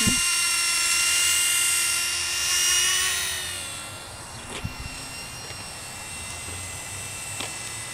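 Blade mSR micro RC helicopter's electric motor and rotor whining in several steady high tones as it flies close by, fading after about three and a half seconds.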